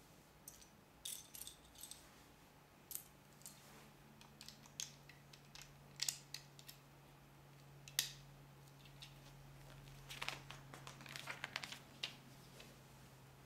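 Plastic Lego pieces clicking and rattling as they are handled and pressed together: scattered sharp clicks, with a quick run of small clicks about ten seconds in, over a faint steady hum.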